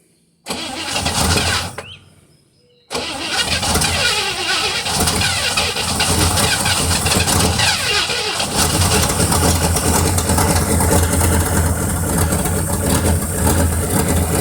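1957 Chevy Bel Air's 283 small-block V8 being started: a first try about half a second in dies out within a couple of seconds, then about three seconds in it catches and runs steadily. It runs without the earlier knock; the owner puts the remaining noise down to loose exhaust manifolds.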